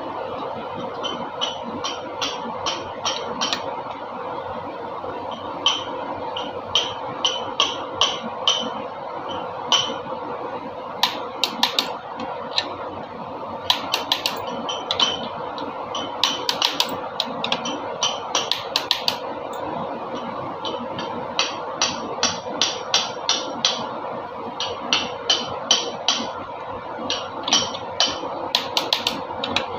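Metal tool work on engine parts: sharp metallic taps or clicks in short runs of three or four a second, with pauses between runs, over a steady background hum.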